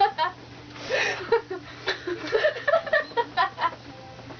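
People giggling and chuckling in short, choppy bursts.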